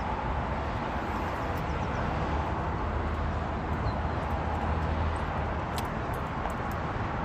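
Steady low rumble of a running motor vehicle with a faint hiss, and a few faint clicks about six seconds in.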